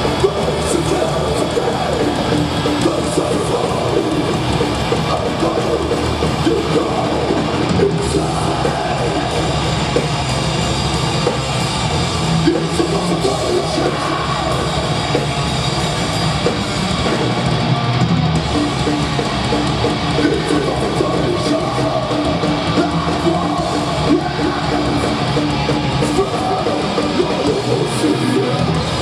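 Death metal band playing live: heavily distorted guitars, bass and drum kit at a loud, dense, unbroken level.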